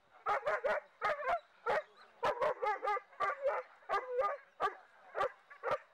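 German Shepherd dog barking in a rapid, unbroken series of short, sharp barks, about three a second.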